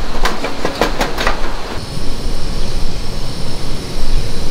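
A quick run of metal clinks and clanks as a steel grill grate is set down on a folding steel fire pit. About two seconds in, this gives way to the steady rushing hiss of a gas camping burner running under a pot.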